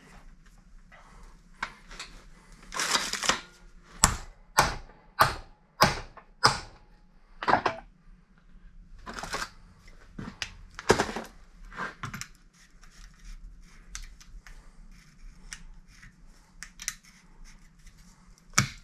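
Metal clanks and scrapes from a steering tie rod and its adjusting sleeve being worked in a bench vise. Around four seconds in comes a run of five sharp, evenly spaced metal strikes about half a second apart, followed by scattered knocks and rasps.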